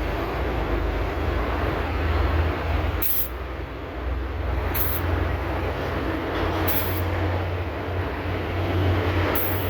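Steady low machine hum with a continuous noisy rush, broken by four short high hisses about two seconds apart.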